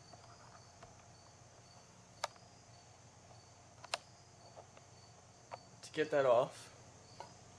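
Two sharp metal clicks, about two and four seconds in, as a bare aluminium carburetor body is handled and turned in the hands. About six seconds in comes a short spoken 'um'-like sound, the loudest thing here, over a faint high pulsing hum in the background.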